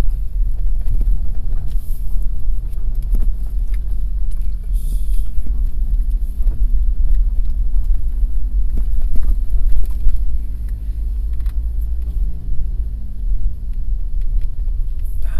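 Daihatsu Taft kei car on the move, heard from inside the cabin: a steady low rumble of road and engine with a faint drone above it and a few light knocks.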